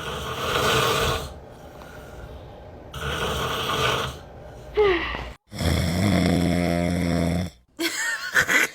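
A man snoring loudly, three long rasping snores a couple of seconds apart. Short gliding voice sounds come between the last snores.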